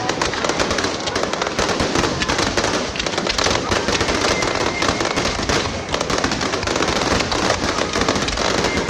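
Fireworks going off in a dense, unbroken barrage: many sharp cracks and pops packed close together into a continuous crackle.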